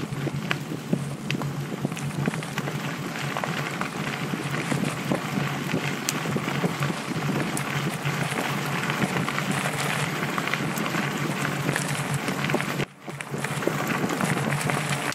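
Mountain bike rolling along a gravel trail, heard from a camera on the handlebars: a steady rush of wind on the microphone with tyre noise on the gravel and many small rattling clicks from the bike. The sound cuts out briefly near the end.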